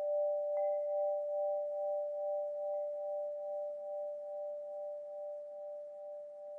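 Wind chimes ringing out: a long, wavering tone that slowly fades, with two faint higher chime strikes, one about half a second in and one about three seconds in.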